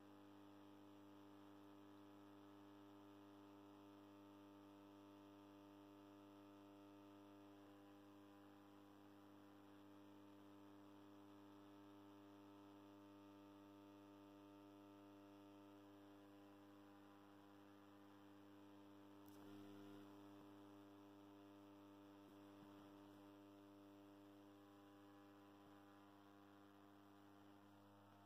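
Faint, steady mains-frequency hum from a 150 W high-pressure sodium street lamp and its ballast while the lamp warms up. A brief faint click and rustle come about two-thirds of the way through.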